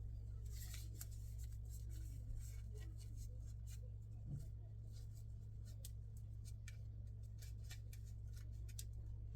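Faint rustling and scattered light clicks of small things being handled, over a steady low hum.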